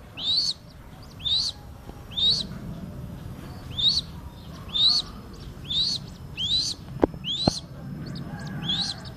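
Crested goshawk chick calling: a short, high, upward-sweeping cheep repeated about once a second, nine times. Two sharp clicks come about seven seconds in.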